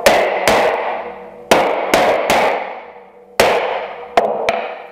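Wooden mallet striking iron bench holdfasts to knock them loose and release the clamped board: about eight sharp knocks in quick pairs and threes, each ringing out briefly.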